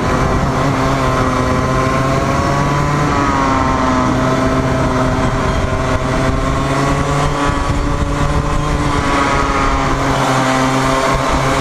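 Racing kart engine heard from onboard at speed, loud and continuous, its pitch rising and falling with the throttle through the corners: a quick jump and drop about three seconds in, a slow climb after it, and another rise near the end.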